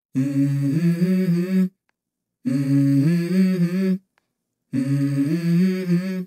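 Music break in the soundtrack: a voice hums a short stepping melodic phrase three times, each about a second and a half long, with dead silence between them.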